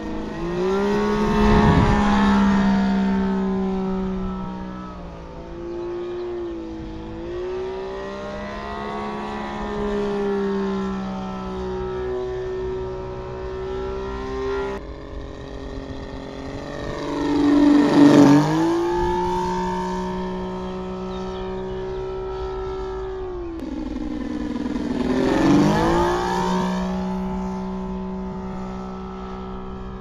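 Saito FG-33R3 three-cylinder four-stroke gasoline radial engine on a model biplane, running in flight. Its pitch dips and rises with the throttle, and it gets loud three times as the plane makes close passes.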